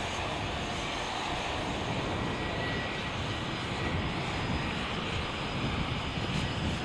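Steady jet aircraft engine noise with a faint high whine running through it.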